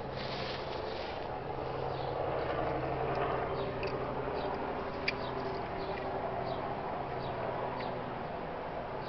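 A few light, sharp clicks of a hand tool working the GY6 engine's oil strainer drain nut as it is screwed back in and tightened, over a steady low hum.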